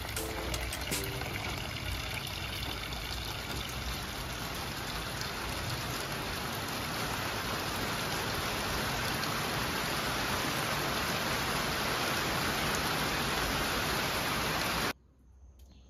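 Steady rush of water, with no rhythm or change in pitch, cut off abruptly near the end.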